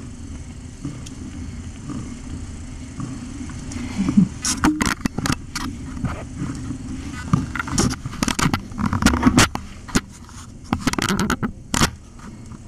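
Handling noise from the camera being moved and repositioned: a run of sharp clicks, knocks and rubbing from about four seconds in until near the end, over a steady low hum.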